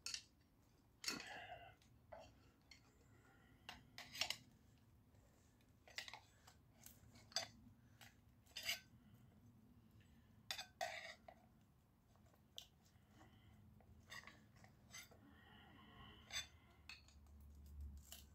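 Faint, sporadic clicks and scrapes of a metal hand tool picking and prying at the copper windings inside an electric motor's housing.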